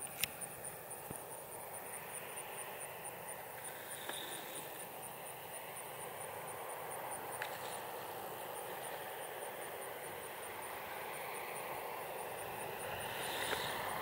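Piper J-3 Cub's engine droning from a distance on landing approach, growing steadily louder as the plane comes in. An insect ticks about three times a second in the background.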